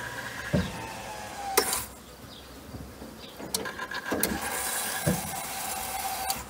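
Electric fuel pump whining as the ignition key is cycled to prime the fuel system. It runs for about two seconds and stops with a click, then runs again steadily for the last few seconds, with a few light knocks in between.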